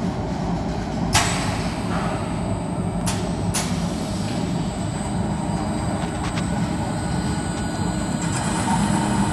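Tube chamfering machine (CH80AV) running steadily under its electric motor, with three sharp clicks in the first four seconds as a metal tube is set into the clamp. A hiss comes in near the end.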